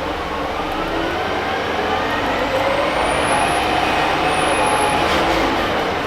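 Orion VII city bus's Detroit Diesel Series 50G natural-gas engine and Allison B400R automatic transmission under way, the engine and driveline whine rising in pitch for about three seconds as the bus accelerates, then falling back near the end.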